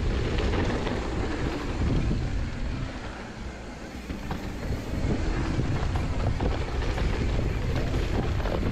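Mountain bike riding down a dirt trail: wind rushing over the camera's microphone and knobby tyres rolling over dirt, with scattered clicks and knocks from the bike, easing a little about three seconds in.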